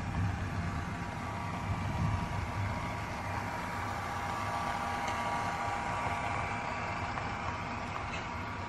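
HO-scale model train passing: a Santa Fe diesel locomotive and its freight cars running by on the track, making a steady hum with a higher whine over it.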